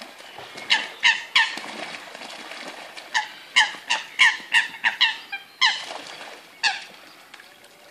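Eurasian coots calling in a fight on the water: a dozen or so short, sharp calls in quick runs, over the splashing of water as the birds kick and flap at each other.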